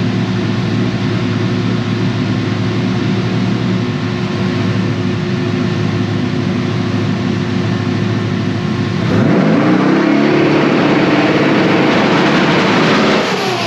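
Twin-turbo 6.0 LS V8 running at a steady speed. About nine seconds in it revs hard, the pitch climbing quickly and getting louder, then dropping away near the end.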